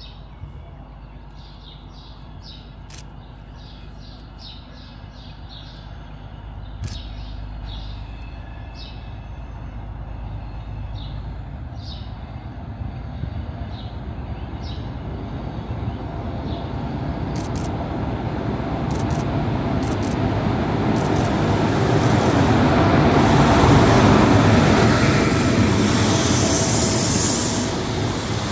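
A train approaching through the station, its rumble building steadily for about twenty seconds to its loudest near the end, with hiss late on. Birds chirp repeatedly over the first part before the train drowns them out.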